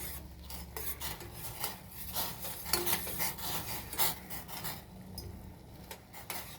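Pan of tea water with tulsi leaves, black pepper and salt at a rolling boil on a gas stove: irregular bubbling and crackling over a low steady hum.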